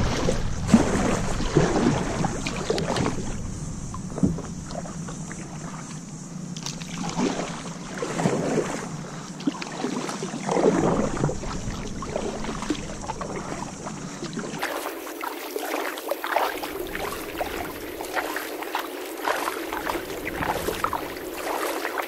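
Kayak paddle strokes: the blade dipping and splashing in calm water, stroke after stroke in an uneven rhythm.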